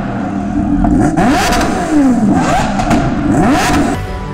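Kawasaki Ninja H2R's supercharged inline-four engine revved repeatedly while standing, its pitch rising and falling with each throttle blip. Music comes in near the end.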